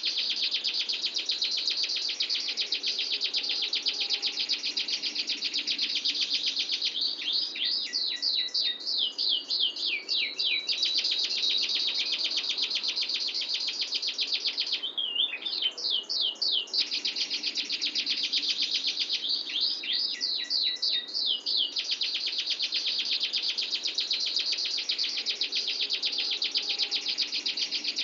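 Domestic canary singing a long, continuous rolling song of very rapid trills, broken three times by runs of quick sweeping notes.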